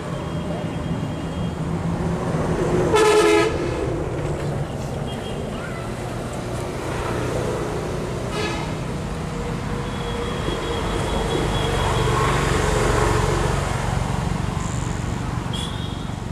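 A horn sounds one short toot about three seconds in, with a fainter toot around eight seconds, over steady outdoor background noise.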